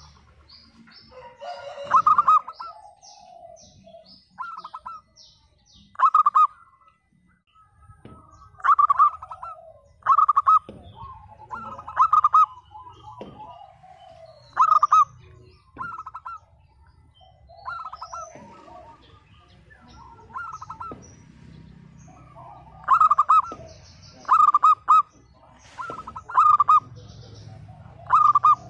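Zebra dove (perkutut) singing its cooing song: loud, short, stuttering bursts of rapid coo notes repeated every one to two seconds, with faint high chirps of small birds in the background.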